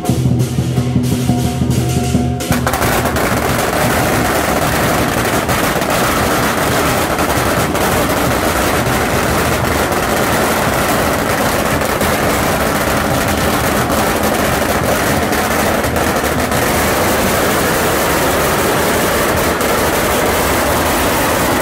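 Lion dance drum, gong and cymbals playing for the first two seconds or so, then a long string of firecrackers starts going off in a rapid, unbroken crackle of bangs that drowns the music and keeps on at the same loudness.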